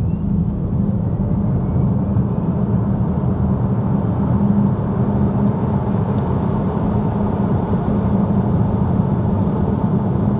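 Cupra Born electric car accelerating hard from a standstill: steady road and tyre roar building with speed, with a faint rising electric-motor whine near the start.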